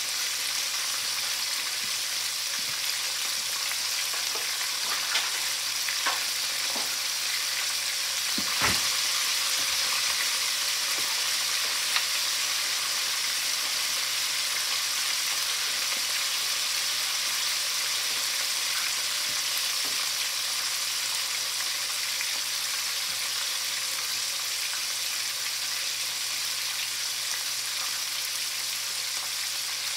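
Flour-dredged chicken wings deep-frying in hot oil in a cast iron pot, a steady sizzle with a few sharp pops in the first twelve seconds.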